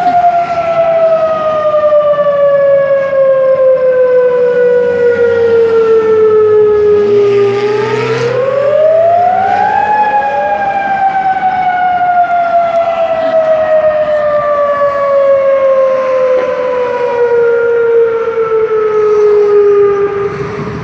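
Civil-defence curfew siren wailing, the signal that the curfew has begun. Its single loud tone falls slowly in pitch, sweeps back up about eight seconds in, then slowly falls again.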